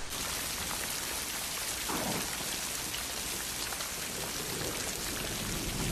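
Steady rain falling: an even hiss with faint scattered drops.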